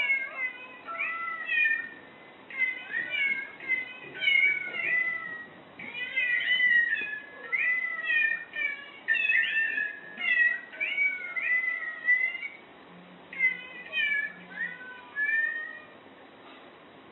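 Musical greeting card playing a tune made of recorded cat meows, one short meow after another in phrases with brief pauses, stopping near the end.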